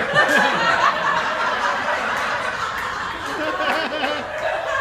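Audience laughter: many people laughing at once, swelling up just at the start and carrying on.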